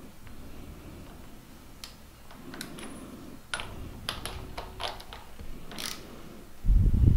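Irregular metallic clicks and clinks of a wrench working the primary cam sprocket bolt on a Ford 5.8L modular V8, snugging it back up after the crank was turned to advance the cams. A heavy low thump comes near the end.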